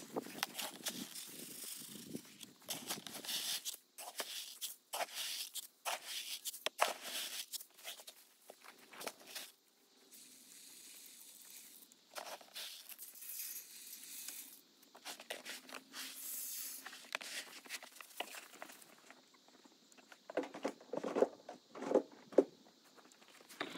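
Rustling and crunching footsteps in dry grass, with irregular small clicks and patters, and a run of louder steps near the end.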